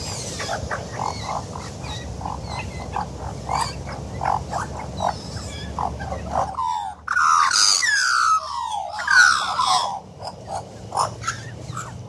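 Australian magpie calling. A series of short repeated notes over a low background rumble, then from about halfway a loud run of warbling, gliding notes that mostly fall in pitch.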